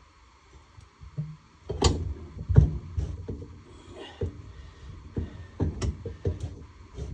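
Irregular knocks and clunks of metal engine parts being handled, as a two-stroke snowmobile cylinder is worked down over the piston onto the crankcase; the loudest knocks come about two and two and a half seconds in.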